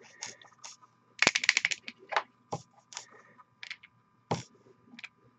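Nearly empty plastic dropper bottle of paint being squeezed, sputtering and crackling in short irregular spurts of air and paint: the sound of a paint bottle running thin. The loudest burst comes about a second in.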